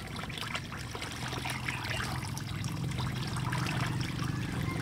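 Water pouring from a plastic jug through a small aquarium fish net and splashing onto wet wooden boards, growing a little louder: live daphnia being strained out of the water they were caught in.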